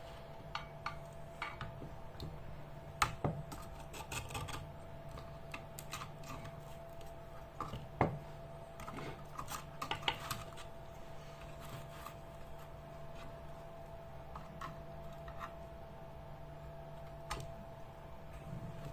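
Scattered small clicks and taps of amplifier parts and tools being handled on a workbench, a few sharper knocks among them, over a steady faint hum.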